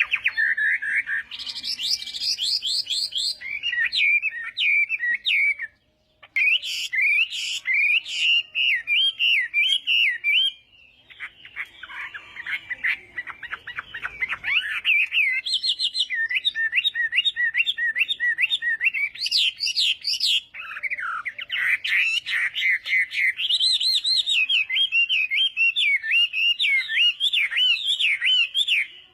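Chinese hwamei singing a long, varied song of rapid whistled phrases, broken once by a short pause about six seconds in and by a harsher, chattering passage near the middle.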